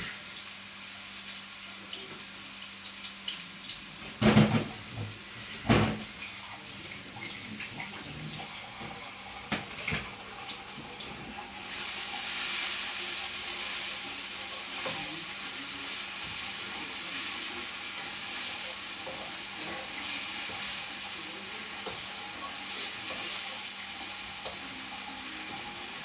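Chopped onion and garlic frying in a hot sauté pan: a steady sizzle that starts about halfway through as the food goes in. Before that, two sharp knocks, the loudest sounds here.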